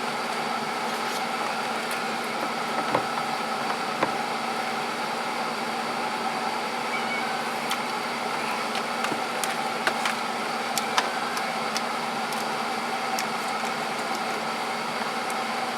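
Steady background machine hum, like a fan or air-conditioning unit, with a few faint clicks and light knocks.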